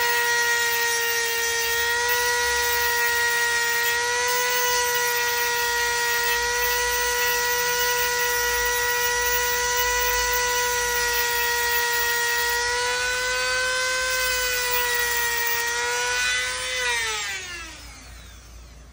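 Dremel rotary tool cutting through a metal rod, a steady high-pitched whine. Near the end it is switched off and winds down, the pitch sliding downward as it fades.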